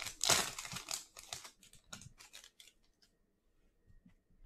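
A Donruss Optic basketball trading-card pack being opened: the wrapper rips and crinkles loudly for about a second, then softer rustling of wrapper and cards dies away about three seconds in.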